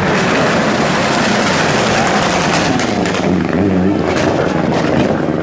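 Rally car driven hard past at close range, its engine at high revs. There are a few sharp exhaust cracks in the second half.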